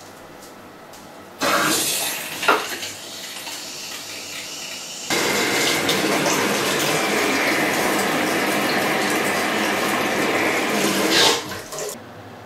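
Water gushing from a bare shower arm into a plastic bucket as newly plumbed copper shower pipework is run. The flow starts suddenly a little over a second in, gets louder and steady about five seconds in, and shuts off near the end.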